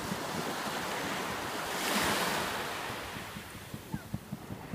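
Small waves washing in over shallow water at the shore, swelling to a peak about two seconds in and then ebbing. A few soft low thumps near the end.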